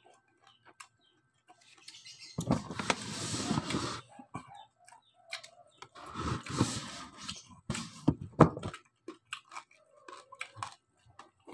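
Close-up chewing and crunching of crispy fried pork belly crackling (lechon kawali). It comes in three loud stretches, with small mouth clicks and smacks between them.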